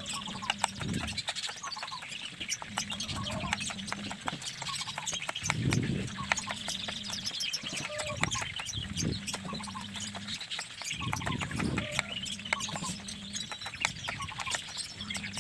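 Kitchen knife slicing shallots on a wooden cutting board: a rapid, uneven run of light taps as the blade meets the board with each cut.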